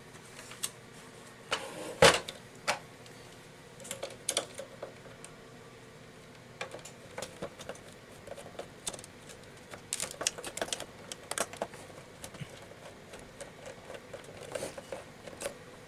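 Scattered small clicks and taps of a screwdriver working screws and handling the plastic parts of a Zebra ZD500 label printer, irregular rather than rhythmic, with the sharpest click about two seconds in.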